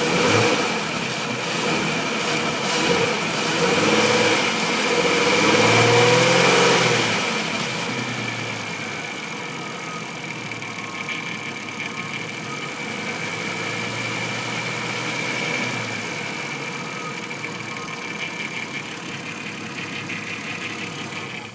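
Volkswagen Transporter T5 engine blipped up and down a few times over the first several seconds, then settling back to a steady idle. The engine is being checked for a knock that shows at idle.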